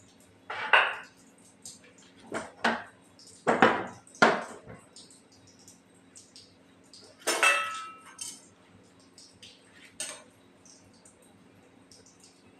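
Kitchen utensils being handled: a series of sharp knocks and clatters, and one metallic clink that rings briefly about seven seconds in.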